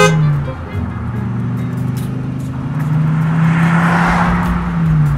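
Truck engine running steadily over background music; its note dips about half a second in and again near the end.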